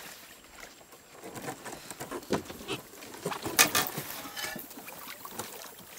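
Dry reed stems rustling and scraping against an inflatable boat and a hunter's camouflage clothing as the boat is poled through a reed marsh: irregular swishes with a few sharper clicks, the loudest a little past halfway.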